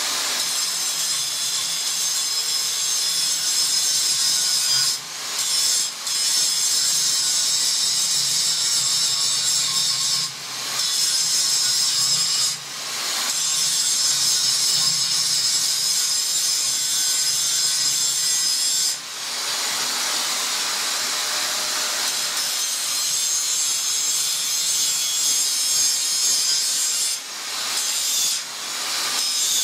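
Electric angle grinder grinding steel: a loud, steady, high grinding hiss of the spinning disc on metal, broken by a few short dips.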